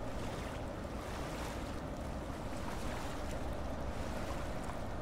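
Steady outdoor background noise: an even, low rumbling hiss with no distinct events.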